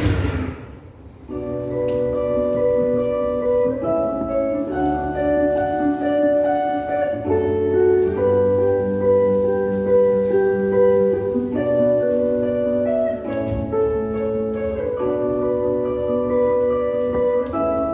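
Instrumental intro of a Brazilian gospel worship song: slow, held chords with melodic notes on top. It comes in after a brief lull about a second in.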